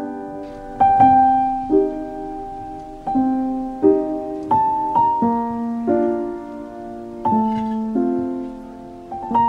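Background piano music: a slow piece of chords struck about once a second, each left to ring and fade before the next.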